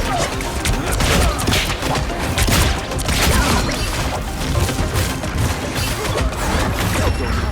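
Video game combat audio: music under a dense, continuous run of impacts, crashes and gunfire.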